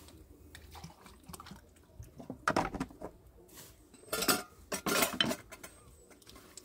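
Metal pots and utensils clattering and clinking in a few short bursts, the loudest about two and a half seconds in and again around four to five seconds in.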